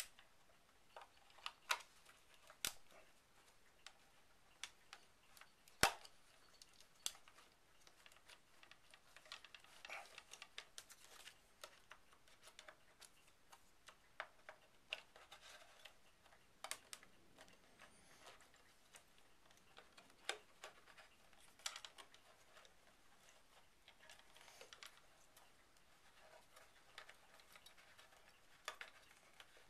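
Quiet, irregular small clicks and scrapes of plastic credit cards being slid and worked between a Bachmann 4CEP model train power car's plastic body shell and chassis to prise the body off its retaining lugs. One sharper click comes about six seconds in.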